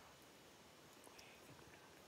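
Near silence: faint forest ambience, with a few faint ticks about a second in.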